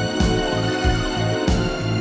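Karaoke backing track playing an instrumental passage: sustained held chords over a steady low beat.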